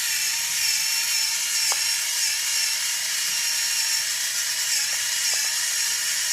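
Cuisinart SG-3 rechargeable electric pepper grinder running, its motor whining steadily as it grinds pepper into the measuring cap, with a few brief dips in pitch.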